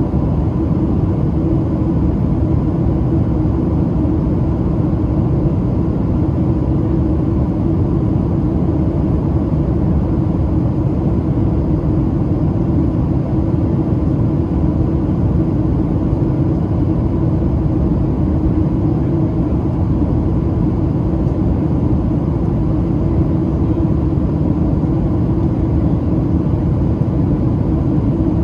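Steady cabin noise inside a Boeing 737-700 airliner on approach: an even, low rumble of airflow and its CFM56-7B jet engines, with a faint steady hum above it.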